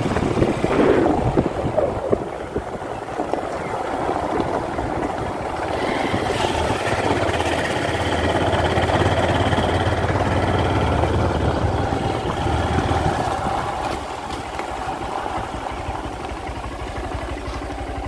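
Motorcycle engine running while riding along a dirt road, with wind and road noise on the microphone. It grows louder in the middle and eases to a quieter, steadier drone from about fourteen seconds in.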